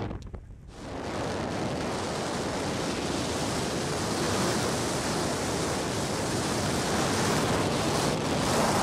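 Steady rush of wind on the microphone during a parachute descent under an open canopy, dropping away briefly just after the start and then running on evenly.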